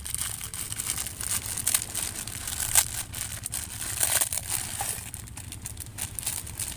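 Hands squeezing a plastic instant-noodle packet, crushing the dry Mie Sedaap noodle block inside into pieces: a run of irregular crinkling and crackling with sharper snaps here and there. Near the end the broken noodles are tipped from the packet into the pot.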